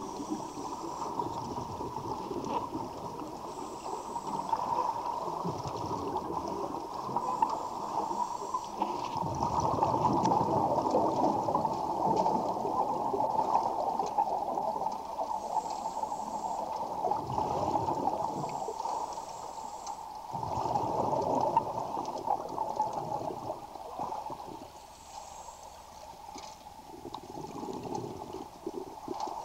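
Scuba diver breathing through a regulator, heard underwater: exhaled bubbles gurgle in surges every few seconds over a steady hum.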